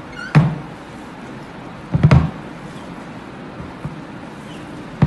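Gloved hand kneading and mixing a soft mashed chicken-and-potato mixture on a plastic plate, with a few dull knocks: one about half a second in, a cluster of them around two seconds in, and one near the end.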